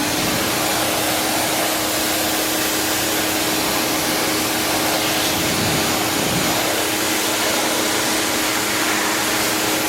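Ryobi 1600 PSI electric pressure washer running: a steady electric motor-pump hum under the hiss of the water jet from a 15-degree nozzle blasting loose paint off a surface.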